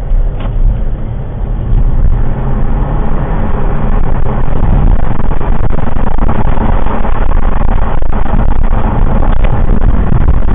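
Road and engine noise of a moving traffic management vehicle, heard from the dashcam inside the cab: a loud, steady rumble that gets louder about two seconds in.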